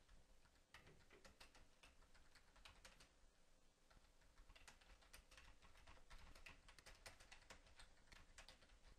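Faint typing on a computer keyboard: a run of quick keystroke clicks, thinning out briefly about three seconds in before picking up again.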